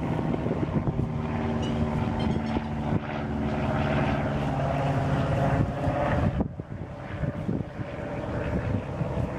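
A steady motor drone with a pitched hum, mixed with wind noise on the microphone.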